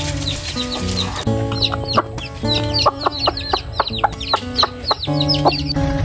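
Chicks peeping in rapid high chirps and a hen clucking, over background music with held notes.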